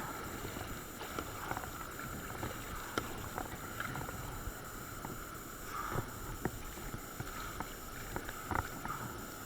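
Water rushing and splashing around a kayak, with irregular short splashes and knocks from paddling. The sharpest come about six seconds in and again near the end.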